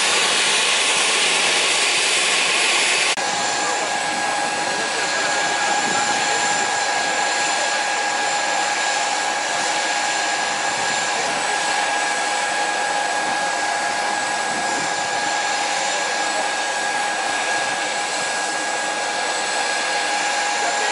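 Embraer EMB-135 regional jet running on the ground: a steady rush of jet noise that changes abruptly about three seconds in to a steady whine with high fixed tones.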